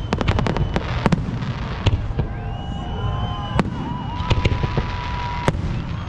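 Fireworks going off: a quick crackling run of bangs in the first second, then single bangs about a second apart over a steady low rumble. A thin high held tone sounds in the middle.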